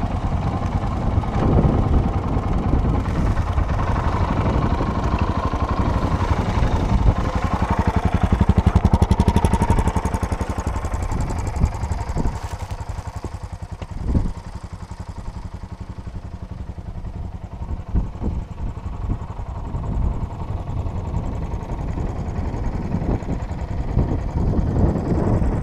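Off-road motorcycle engine running under way, louder for the first ten seconds or so, easing off around the middle with scattered knocks, then picking up again near the end.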